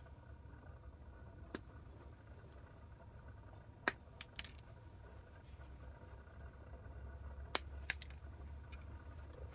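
Wire clippers snipping excess metal off freshly cast pewter bird feet: about six sharp clicks of the cuts, one alone, then a group of three, then a quick pair near the end, over a faint low hum.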